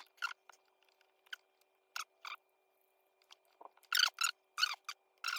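Short, sharp clicks and scrapes in irregular clusters, several near the end, from stiff 6-gauge wires and a tool being worked into the terminals of a range outlet.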